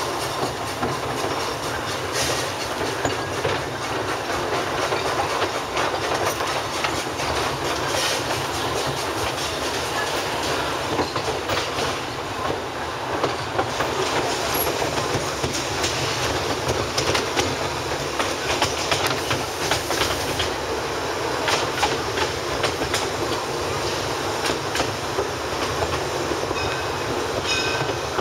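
Small steam train heard from its open passenger car as it rolls along the track: a steady rumble of wheels on rail. Clicks and knocks stand out every second or few seconds at irregular intervals.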